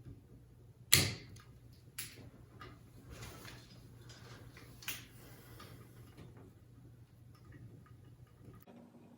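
Sharp snip of handheld wire cutters about a second in, trimming back over-stripped cable sheathing, followed by lighter clicks and rustling as the wires are handled.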